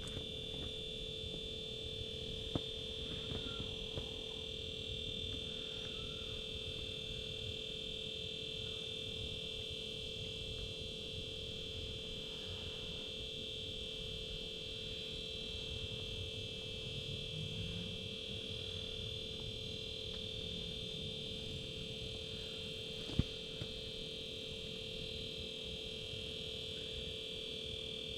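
Steady electronic tone at two constant pitches, one mid and one high, over a low hiss, with a single sharp click about 23 seconds in.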